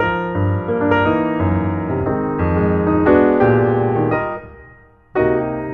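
Background piano music. The notes die away about four seconds in, and a new phrase starts about a second later.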